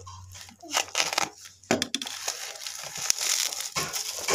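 Plastic courier mailer being slit with a small cutter and then torn and crumpled open by hand: scattered crackles at first, turning to denser crinkling from about three seconds in.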